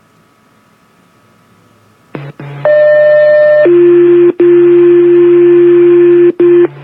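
Fire department two-tone sequential page heard over a radio: faint hiss, then the channel opens about two seconds in. A higher tone sounds for about a second, followed by a lower steady tone for about three seconds, over a low hum with two brief dropouts. These are the alert tones that set off the firefighters' pagers for a test page.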